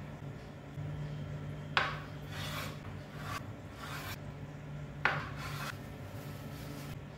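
Kitchen knife cutting through a block of firm tofu onto a bamboo cutting board, twice: each stroke is a sharp tap of the blade on the board followed by a short scraping rub.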